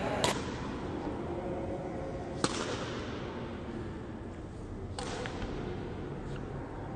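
Badminton rackets striking a shuttlecock in a rally: three sharp hits about two and a half seconds apart, over faint steady background noise.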